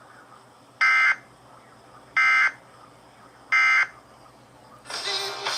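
Emergency Alert System end-of-message signal: three short, identical bursts of shrill digital SAME data tones about a second apart, marking the end of the severe thunderstorm warning broadcast. Another sound begins just before the end.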